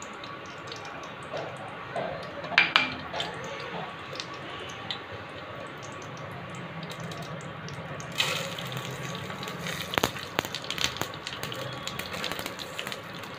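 Cooking oil heating in a pan with a faint steady hiss and a couple of knocks about two and a half seconds in. About eight seconds in, mustard and cumin seeds and split lentils go into the hot oil and sizzle and crackle, with a spoon stirring them.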